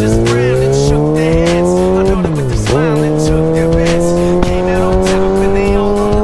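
Kawasaki ZX-6R inline-four engine through an Austin Racing GP1 exhaust, accelerating with a steadily rising note. The revs drop for an upshift about two seconds in, then it pulls on and climbs again in the next gear.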